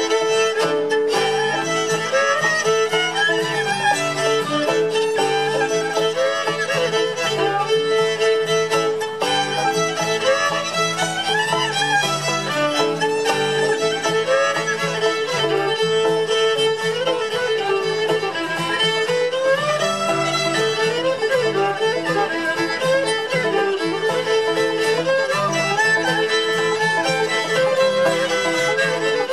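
Old-time string band playing a fiddle tune: two fiddles bowing the melody together over guitar and banjo backing, at a steady dance tempo.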